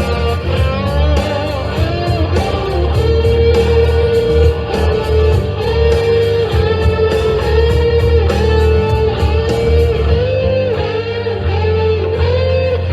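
Rock music led by electric guitar: a held, bending melody line over bass and a steady cymbal beat.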